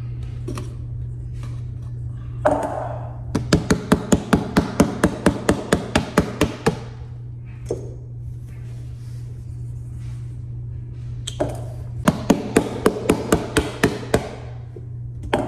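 Plastic fork beating pancake mix in a stainless steel bowl, its tines striking the bowl in quick, even clicks about five times a second. There are two runs: one a few seconds in lasting about three seconds, and a shorter one near the end.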